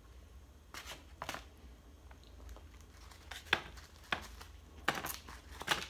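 Styrofoam takeout clamshell containers being opened and handled: a scatter of short, sharp creaks and clicks.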